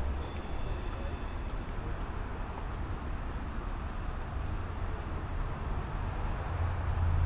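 Steady outdoor background noise on a car lot, with a low rumble that grows louder near the end.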